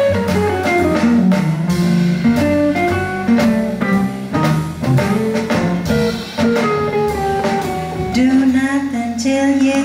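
Small jazz combo playing an instrumental passage: upright bass, drum kit, electric archtop guitar and saxophone.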